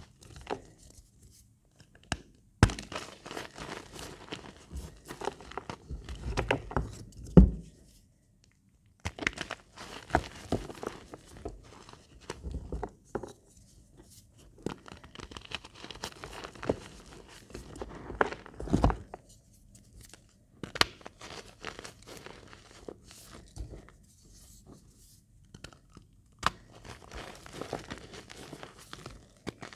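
Reformed blocks of magnesia gym chalk crushed and crumbled in squeezing palms. Repeated bursts of dry crunching and crackling with sharp little snaps, in separate squeezes with short pauses between them.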